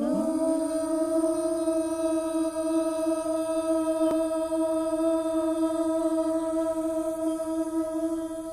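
A single long sung note, held steady at one pitch. It slides up into the note at the start and softens near the end.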